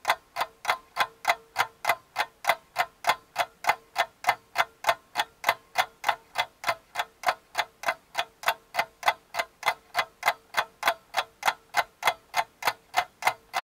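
Rapid, even clock-like ticking, about three to four ticks a second, over a faint steady hum.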